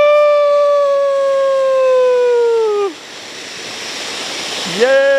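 Firework fountain (a 'peacock' cracker) whistling loudly on one steady high note that sags and cuts off after about three seconds, then hissing as it sprays, then whistling again, the second whistle sweeping up from a low pitch.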